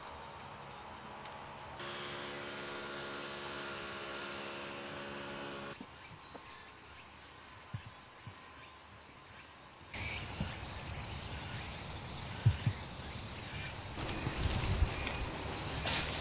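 Summer woodland ambience of insects buzzing and chirping, changing abruptly several times as the footage cuts between clips. From about two-thirds of the way through, a repeated high pulsing insect call sits over a louder low rumble with a few dull thumps.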